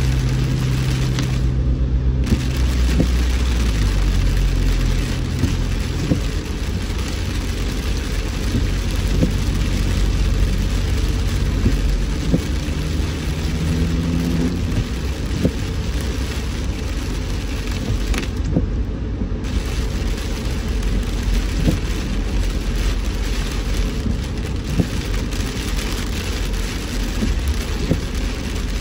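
Rain drumming on a car as it drives on a wet road, over the steady low rumble of the engine and tyres. The rain hiss drops out for about a second twice.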